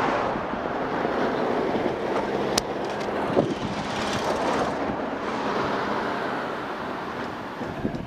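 Steady rush of wind over the camera microphone and wheels rumbling on asphalt as a kick scooter rolls fast downhill. A car passes close by about four seconds in.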